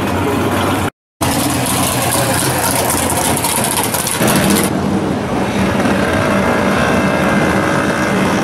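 Drag-car engines running at low speed as hot rods roll past one after another, with a hard cut to silence for a moment about a second in and a change of engine sound about four seconds in.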